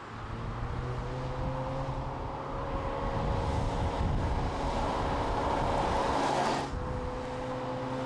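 Connaught sports car's supercharged V10 engine running as the car drives along the road, a steady engine drone with tyre and wind rush. The rushing noise swells in the middle and drops suddenly about seven seconds in, while the steady drone carries on.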